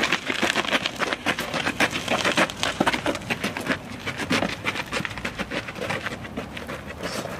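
Gravel crunching under shuffling footsteps and a small rolling wheel as a heavy steel truck frame section is moved on a dolly: a dense, irregular run of crackling steps.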